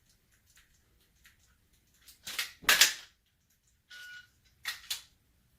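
Sharp metallic clacks of a Glock 34 pistol being handled between dry-fire reps, with a loud pair about two and a half seconds in and another pair near the end. A short electronic beep sounds just after four seconds.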